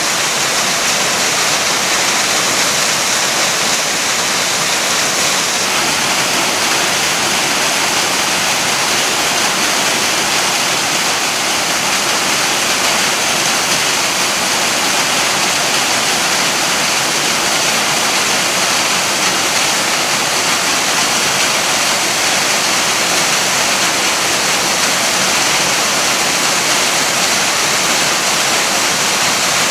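Akagama Falls, a waterfall, pouring with a loud, steady rush of falling water that does not change.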